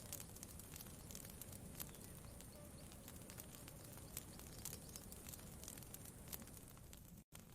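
Campfire crackling: faint, irregular sharp pops over a low steady rumble. The sound cuts out completely for an instant near the end.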